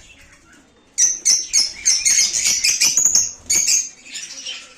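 A flock of lovebirds calling: after a quiet second, a rapid run of shrill chirps for a couple of seconds, then fainter chatter near the end.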